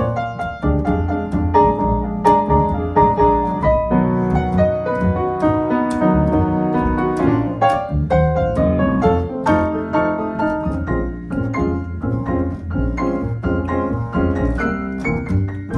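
Piano solo: quick runs of single notes over chords, with low bass notes underneath.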